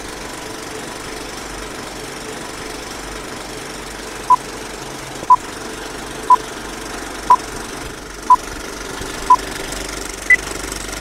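Old film projector running steadily under a countdown-leader beep: six short beeps of the same pitch a second apart, then one higher-pitched beep a second later.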